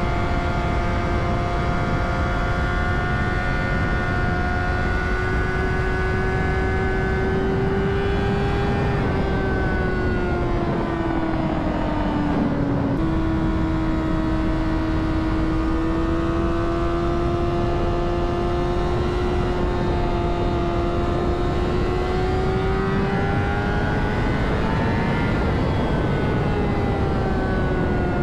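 Honda CBR600RR's inline-four engine running at steady high revs under wind rush. Its note falls about nine seconds in, steps sharply back up about thirteen seconds in, then climbs and eases off again near the end.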